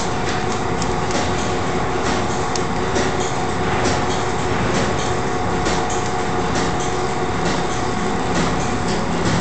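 Two-roll open mixing mill running with silicone rubber on its steel rolls: a steady mechanical hum and rumble, with frequent irregular clicks and crackles.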